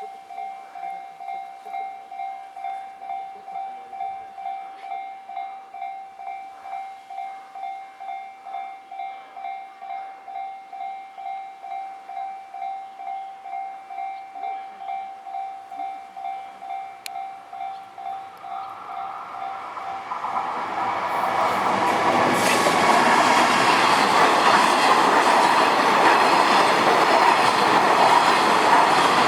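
Japanese railway level-crossing warning bell ringing in an even, fast repeat of two or three dings a second. About twenty seconds in, a train arrives and passes over the crossing: a loud rumble and clatter of wheels on rails that drowns out the bell.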